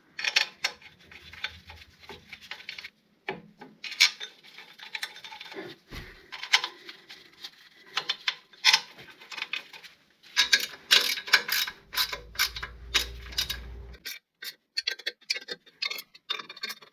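Hand ratchet clicking in quick runs as the clutch pressure plate bolts are run down onto the flywheel, among scattered metal clinks of the bolts and plate being handled.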